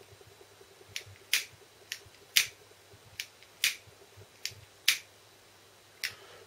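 A jet-flame lighter clicking about nine times, sharp single clicks at uneven intervals, as it is lit again and again to shrink heat-shrink tubing.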